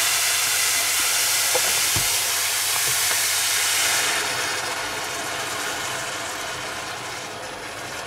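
Kale and onions sizzling in hot lard in a steel pot, a loud steady hiss with a few light knocks of the spatula. About four seconds in, broth is poured in and the sizzle dies down to a quieter bubbling.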